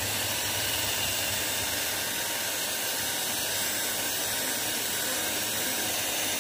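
A steady hiss that starts suddenly and holds level throughout.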